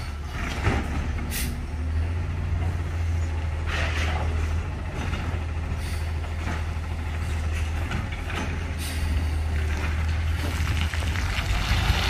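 Garbage truck's diesel engine running with a steady low drone as the truck moves slowly, with a few short hisses of air brakes.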